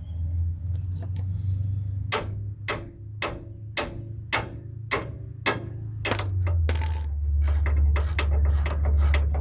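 Ratchet wrench clicking as a freed, rusted brake caliper bolt is turned out: sharp metallic clicks about twice a second, becoming quicker and denser about six seconds in, over a steady low hum.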